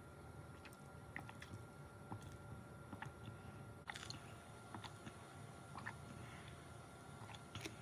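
Faint sipping and mouth sounds of someone drinking a cream-topped drink through a straw, with scattered soft clicks; a few slightly louder ones come about four, six and seven and a half seconds in.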